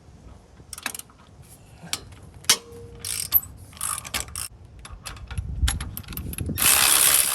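Ratchet and wrench working the front wheel hub's mounting bolts: scattered ratchet clicks and small metal knocks, then near the end a louder continuous run of noise.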